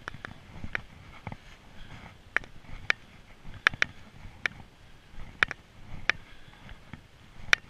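A hiker walking up a rocky forest trail: about a dozen sharp, uneven clicks, roughly one every half second to second, over a faint low scuffing of steps. The loudest click comes near the end.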